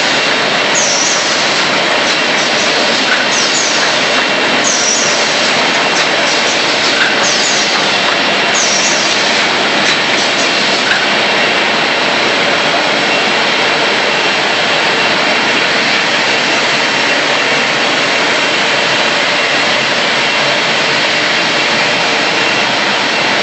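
Automatic A4 paper roll-to-sheet cutting and ream-wrapping machine running with a loud, steady mechanical noise. Through roughly the first ten seconds, a short high squeak that falls in pitch repeats about every one and a half to two seconds, then stops.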